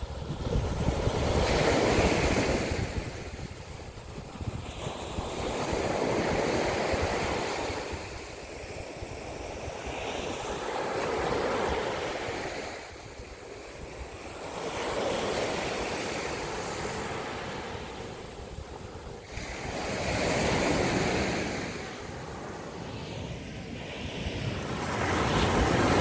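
Sea waves breaking on a sandy beach and washing up the shore, the surf swelling and fading about every four to five seconds, six surges in all.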